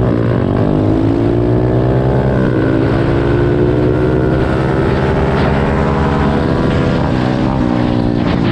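Two small single-cylinder four-stroke pit bike engines, an SSR 125 with an aftermarket FMF exhaust and an SSR 110, at full throttle in a side-by-side race. Engine pitch climbs, drops briefly at a gear change about two and a half seconds in, then climbs again, with wind buffeting on the microphone underneath.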